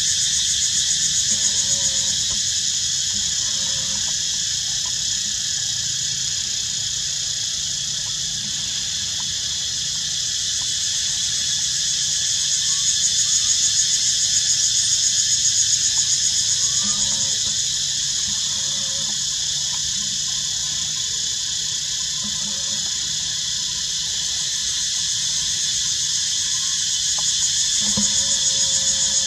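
A dense chorus of insects making a steady high-pitched buzz, swelling louder for a few seconds about halfway through and again near the end.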